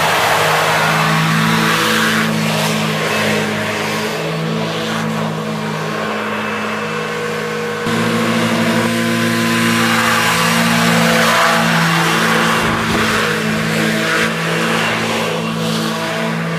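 A small hovercraft's engine and fan running as it skims across lake ice: a steady engine note under a rush of air, the note shifting suddenly about halfway through.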